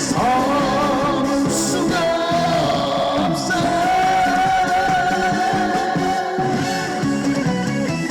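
Live trot song's instrumental passage over a stage sound system: band accompaniment with a steady beat, and a lead melody line that holds one long wavering note through the middle.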